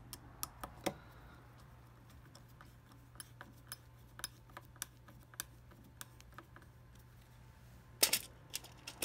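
Light clicks and taps of small metal screws and a hex driver being handled against the plastic extruder parts: a few sharp clicks at first, a string of faint ticks in the middle, and a louder cluster of clicks near the end.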